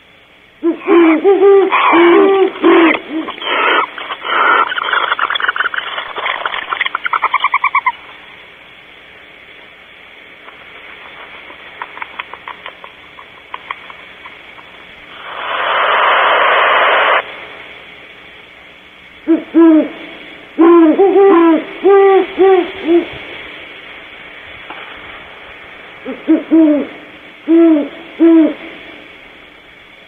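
Great horned owls hooting in three bouts of short, deep notes, the middle bout about seven hoots long, with a rapid stuttering series of notes during the first bout. Near the middle a barn owl gives a hissing screech lasting about two seconds.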